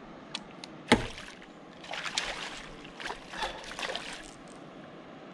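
A piau thrashing in a landing net at the water's surface, splashing in a run of bursts for about two seconds. About a second in there is a single sharp knock, the loudest sound.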